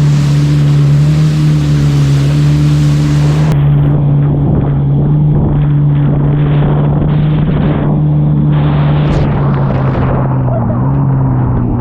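Jet ski engine running at a steady speed, a constant drone over a rush of water and wind noise.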